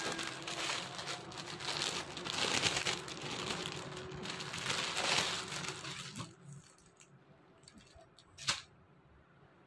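Clear plastic packaging bag crinkling and rustling as folded fabric is pulled out of it, for about six seconds. Then it goes quieter, with one short sharp rustle near the end.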